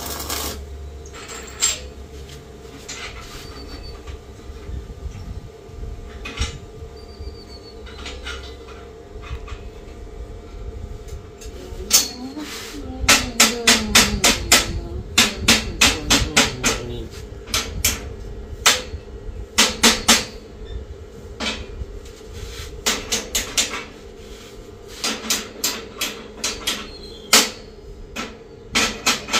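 Metal hammer tapping on steel window-grille bars held in a jig: irregular runs of sharp metallic knocks, sparse at first and then quick and dense through the middle and near the end, over a steady low hum.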